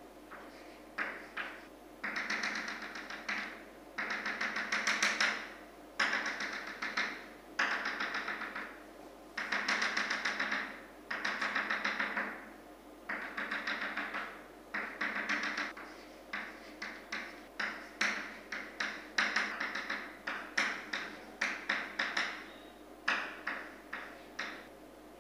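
Chalk on a chalkboard: a run of scraping strokes, each about a second long, changing after about sixteen seconds to shorter, quicker taps and scratches as figures are written.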